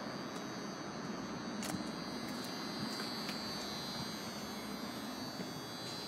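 Steady background hiss and hum with a faint high-pitched whine running through it and a few light clicks.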